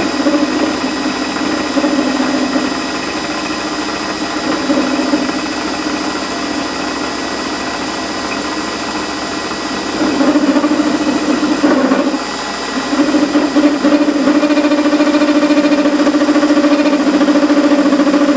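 Warco metal lathe running, with a 12 mm end mill fed from the tailstock spot-facing a drilled hole in the workpiece. There is a steady hum with a faint motor whine. The cutting noise grows louder about ten seconds in, eases briefly, then carries on louder and steady as the cutter bites in.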